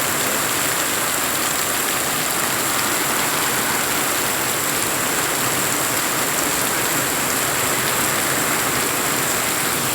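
Steady rain falling, an even hiss of rain on surfaces at a constant level, with a thin, steady high tone above it.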